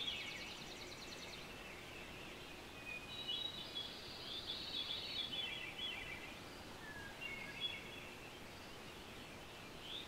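Songbirds singing over a steady faint hiss. A rapid high trill comes at the start, a long warbling song runs from about three to six and a half seconds in, and a shorter phrase comes near eight seconds.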